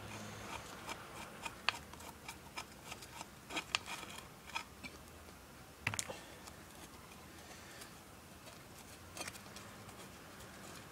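Quiet, irregular clicks and light metal taps from a socket and hand tools being worked on the bolts of an old Maytag gas engine, with the sharpest tap about six seconds in.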